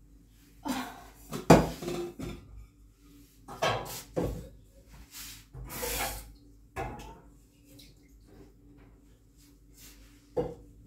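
Metal pots and bowls clanking and knocking as they are handled, in a string of separate clatters, the loudest about a second and a half in, with a brief hiss about six seconds in and a last clank near the end.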